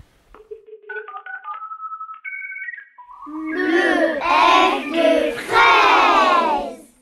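A short run of plinked musical notes climbing in pitch, then a group of children's voices calling out together in several loud bursts.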